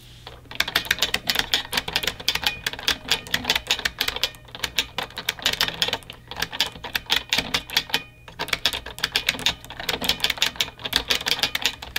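Rapid clacking of typing on a mechanical keyboard, a fast run of key strikes with a couple of short pauses.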